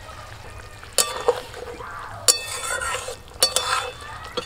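Spatula stirring a simmering fish curry in a metal kadai, scraping through the gravy, with several sharp, ringing clinks against the pan.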